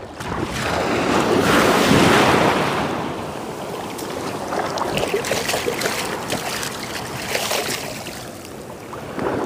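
Small sea waves surging and washing in the shallows, swelling and easing, with splashes between about 4 and 8 seconds in as prawns are rinsed by hand in the seawater.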